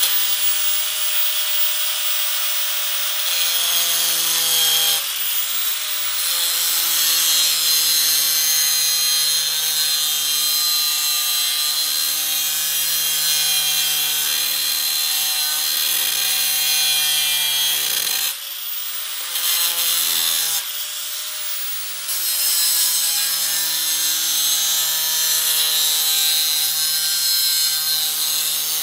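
Angle grinder with a thin 4.5-inch DeWalt cutoff disc cutting a curved line through sheet metal: a continuous cutting hiss over the motor's whine, whose pitch shifts as the disc loads. It eases off briefly twice, about 18 and 21 seconds in.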